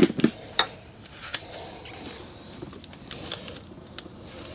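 Irregular light clicks and rustling of a car's wiring harness and its plastic connectors and loom being handled.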